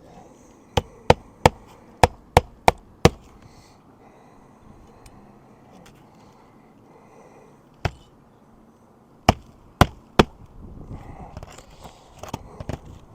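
Hammer driving roofing nails into an asphalt shingle: a quick run of seven sharp strikes, a single strike, then three more, with some scraping of shingles near the end.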